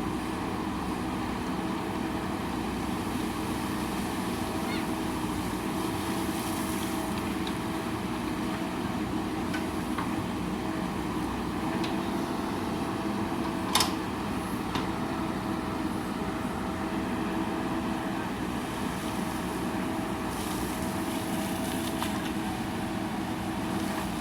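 JCB backhoe loader's diesel engine running steadily, with a single sharp knock about 14 seconds in.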